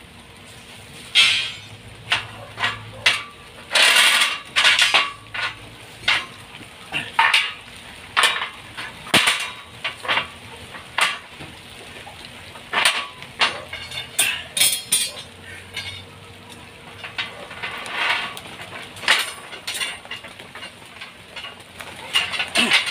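Irregular metal knocks, clinks and short scrapes from hand work on steel reinforcing bars, some strikes sharp and some dragged out for a fraction of a second.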